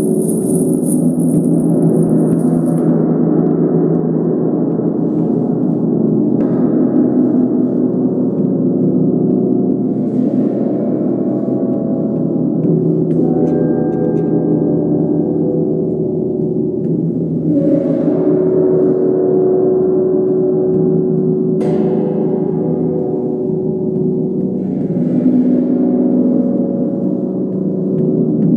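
A 40-inch Mother Tesla gong played continuously with soft fluffy mallets: a dense, sustained wash of many overlapping ringing tones. Fresh strokes bring a brighter shimmer every few seconds, the sharpest about three quarters of the way through.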